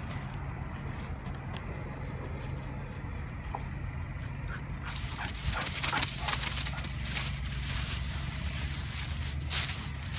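A dog running and bounding through a thick layer of dry fallen leaves, the leaves crackling and rustling under its paws. The crackling grows busier about halfway in, over a steady low rumble.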